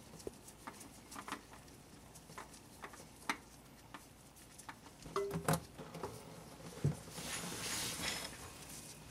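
Engine oil dripping into a drain pan from the oil filter mount, in irregular small ticks. A few louder knocks about halfway through and a brief rustle near the end as the filter is handled.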